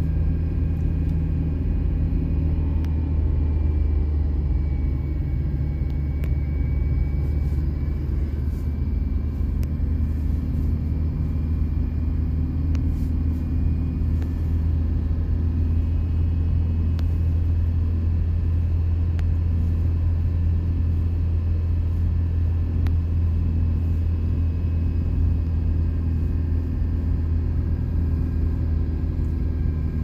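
Steady low rumble of a car driving, heard from inside the cabin: engine and road noise at an even pace.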